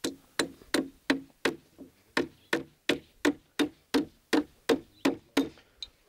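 Claw hammer driving nails into the wooden boards of a transition beehive box: a steady run of about sixteen blows, roughly three a second.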